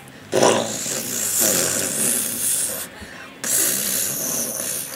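A child's mouth-made rocket sound effect: a breathy, rasping hiss, broken off briefly near three seconds and then started again.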